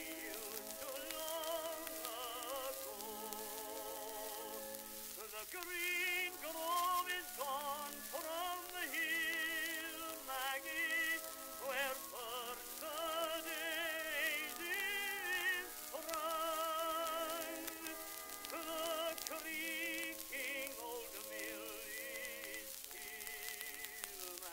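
Background music from an old, narrow-sounding recording: an instrumental passage with strong vibrato on the melody lines, over steady surface hiss.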